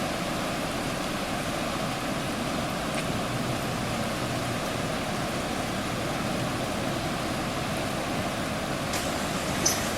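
Steady rushing of fast-flowing floodwater running over a road, with a brief click near the end.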